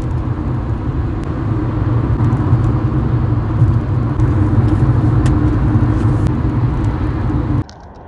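Car cabin noise while driving: a steady, loud low rumble of engine and road, which cuts off suddenly near the end.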